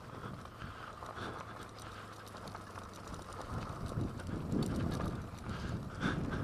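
Suzuki DRZ400S dual-sport motorcycle coasting downhill on gravel with the engine off: tyres crunching over loose stones, with the chain and bike rattling and clicking, louder over the second half.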